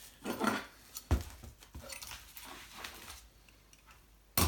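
Parts of a 3D printer kit being handled and set down during unboxing: two sharp knocks, one about a second in and a louder one near the end, with faint rustling between.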